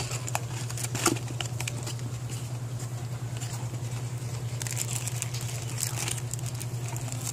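Paperboard boxes and a cardboard carton being handled: scattered light taps and clicks as a box is pulled out and its flap opened, with a denser stretch of rustling a little past the middle. A steady low hum runs underneath.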